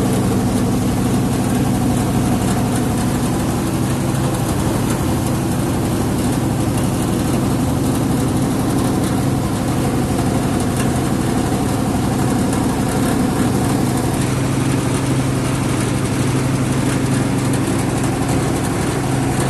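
A river boat's engine running steadily while the boat is under way, an even, unchanging low hum.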